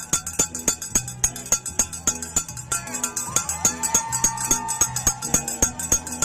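A cowbell rung rapidly and steadily, about six strikes a second.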